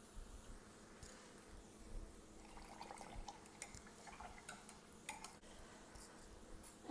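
Near silence: quiet room tone with a scatter of faint, light clicks and taps in the second half.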